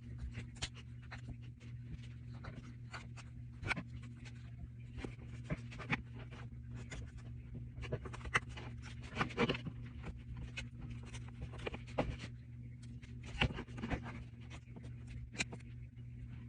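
Irregular small clicks, taps and scrapes of hand tools and parts being handled during a phone screen repair, over a steady low hum.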